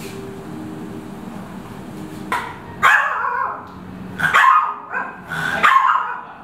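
A small dog, a Pomeranian, barking in a quick series of short, high yaps, starting about two seconds in.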